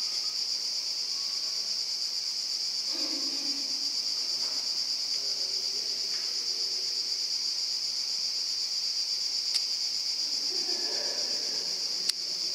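Steady, high-pitched chorus of insects in the canyon, with two sharp clicks near the end, the second the louder.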